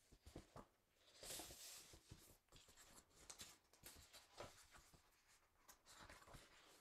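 Near silence, with faint rustling and small clicks of paper being handled.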